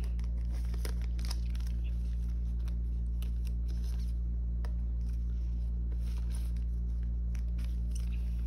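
Clear plastic binder sleeves rustling and crinkling in short, scattered bursts as photocards are slid in and out of the pockets, over a steady low electrical hum.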